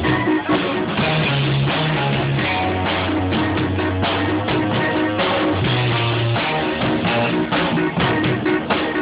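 Rock music with guitar and a drum kit playing.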